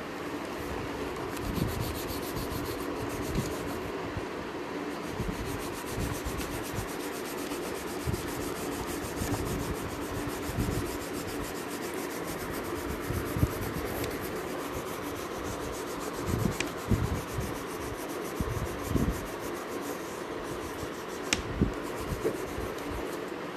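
Fast back-and-forth rubbing of a colouring stick shading on drawing paper, with soft knocks now and then as the strokes press the paper against the surface below.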